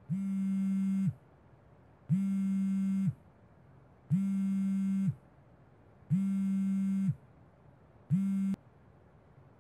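Smartphone ringing with an incoming call: a low buzzing ring tone about a second long, repeated every two seconds, five times. The fifth ring is cut short as the call is answered.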